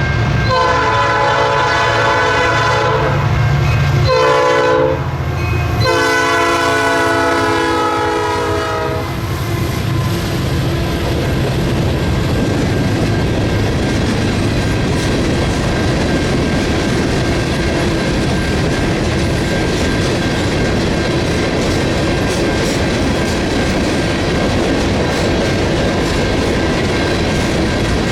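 A train's horn sounds a long blast, a short one, then another long one. The train then rolls past with steady wheel and rail noise and a clickety-clack of wheels over rail joints.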